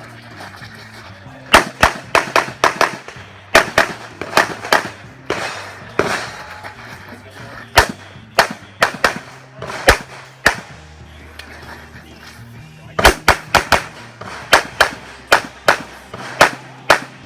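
Handgun fired in quick strings of rapid shots, with short pauses between the strings. The shooter is running a practical-shooting stage.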